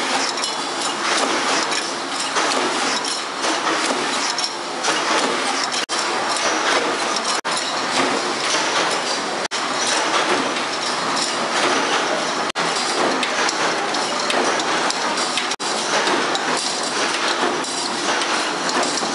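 Mechanical power presses stamping and curling tin-can rings from metal strip: a loud, continuous metallic clatter of rapid, repeated press strokes. The sound cuts out for an instant several times.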